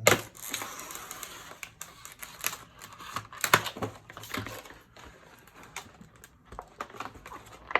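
Cardboard film box and packs being handled: rustling and a scattered series of sharp clicks and knocks, the loudest right at the start and about three and a half seconds in.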